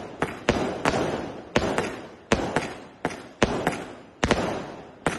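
Fireworks exploding in a rapid, irregular string of sharp bangs, about two a second, each dying away in a short echoing tail.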